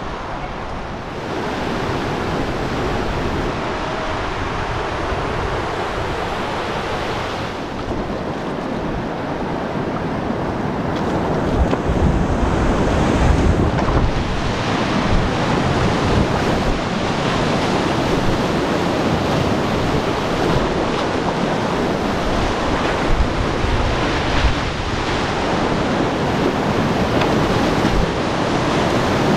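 Rushing whitewater of a mountain river, a steady loud roar that grows a little louder about a third of the way through, with wind buffeting the microphone.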